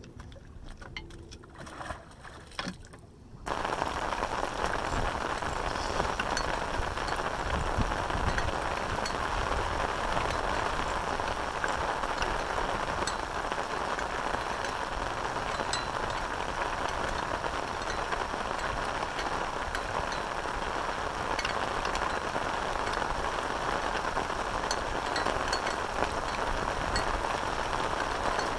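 Steady rain falling: an even hiss dense with small drop ticks. It comes in abruptly about three and a half seconds in, after a few faint clicks and knocks.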